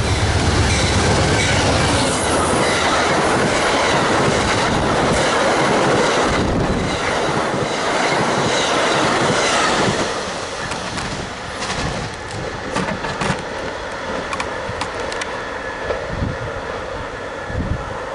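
Amtrak passenger train led by a P42DC diesel locomotive passing at speed: the locomotive's engine rumble as it goes by, then the steady rolling of the passenger cars on the rails. About ten seconds in the sound drops as the last car passes, leaving wheel clicks over the rail joints as the train recedes.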